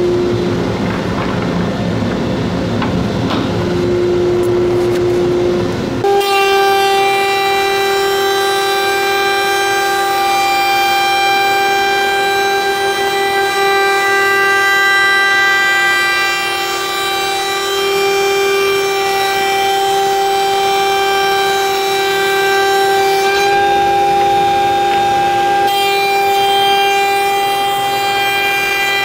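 Spindle and surfacing cutter head of a CNC-style gantry wood machine flattening the face of a timber blank. About six seconds in, after a stretch of low rumbling, it settles into a loud, steady whine of several pitches over a hiss of cutting and dust extraction.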